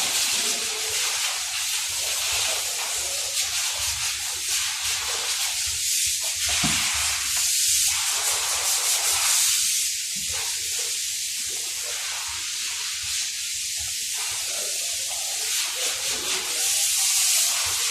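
Steady high hiss of compressed air from a body-shop air tool, swelling slightly a couple of times.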